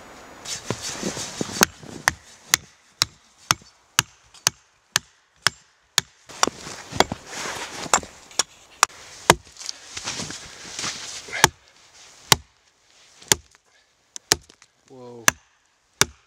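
An axe chopping into a log: a long run of sharp, regular strikes about two a second, which slow to single blows every second or so near the end.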